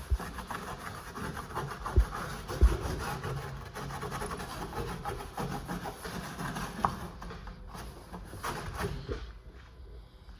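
Scotch-Brite pad scrubbing rapidly back and forth over a jon boat hull, scuffing the surface so the paint will grip. Two low thumps come about two seconds in, and the scrubbing stops about a second before the end.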